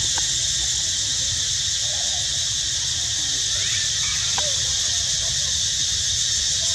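Steady high-pitched drone of an outdoor insect chorus, crickets or cicadas, with a few faint short squeaks about a second apart near the middle.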